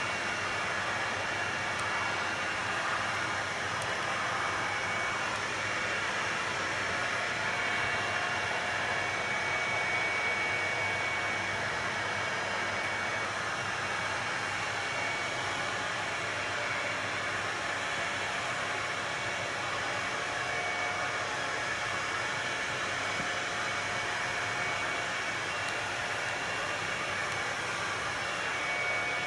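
Dyson vacuum cleaner running with its pet grooming brush attachment, a steady rush of suction air with a faint high whine, as it brushes and sucks at a cat's fur.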